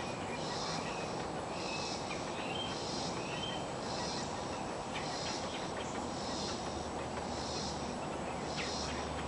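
An insect calling outdoors in even, hissy pulses, a little more than one a second. A few short bird chirps come in during the first few seconds.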